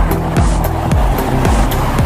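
Background music with a steady beat: a deep kick drum about twice a second over a bass line, with a ticking hi-hat on top.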